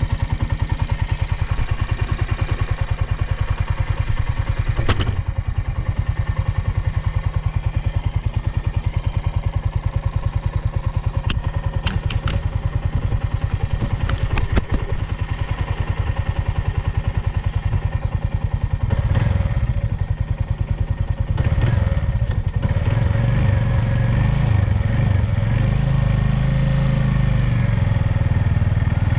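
Suzuki Volty's 250 cc air-cooled single-cylinder engine idling with a steady beat, a few sharp clicks in the first half. From about two-thirds in it is revved lightly, the pitch rising and falling. It runs smoothly, with no abnormal noise.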